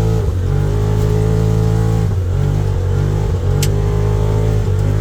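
Turbocharged Can-Am Defender Limited side-by-side's V-twin engine running hard at a steady pitch, briefly easing off about four times as the throttle lifts. A sharp click sounds about three and a half seconds in.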